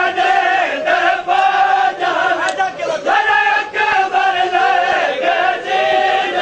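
Men's voices chanting a Punjabi noha, a mourning lament, in a steady rhythm, with regular sharp strikes of chest-beating (matam) keeping the beat.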